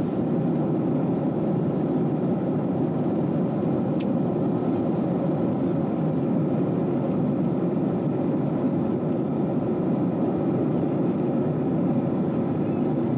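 Steady cabin noise inside a Boeing 737-700 airliner: the constant rush of the engines and air, with one faint click about four seconds in.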